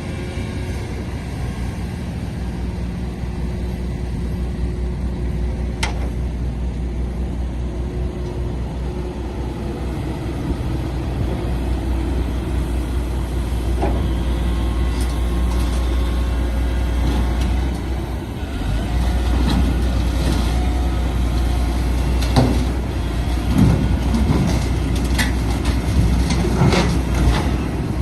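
Heavy diesel engine running steadily with a deep rumble, getting louder about halfway through, with a few sharp metallic knocks and clanks near the end.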